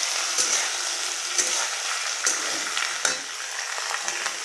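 Cubed onions sizzling in hot oil in a kadai, stirred with a metal spatula that scrapes against the pan about four times over a steady frying hiss.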